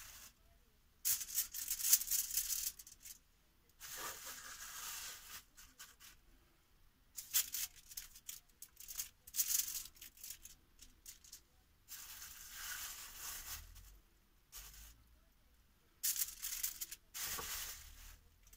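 Plastic bag crinkling and rustling in several separate bouts as marinated beef steaks are pulled out of it by hand and laid into a foil-lined dish, with some crackle from the foil.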